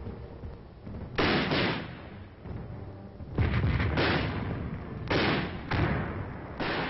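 Battlefield gunfire on an old, narrow-band film soundtrack: about six heavy shots or blasts at uneven intervals, each with a short rumbling tail.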